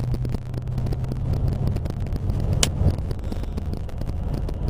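Car driving at highway speed heard from inside the cabin: a steady low engine and road drone, with one sharp click about two and a half seconds in.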